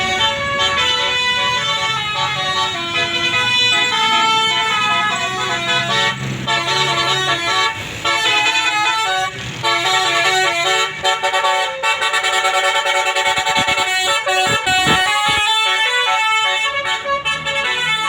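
A bus's 'telolet basuri' musical air horn playing a quick melody of many short, stepped notes. A bus engine runs underneath in the first half, then drops away.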